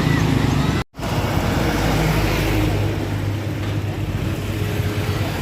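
Road traffic at close range: a heavy vehicle's engine running low and steady. The sound cuts out for a moment about a second in, then resumes.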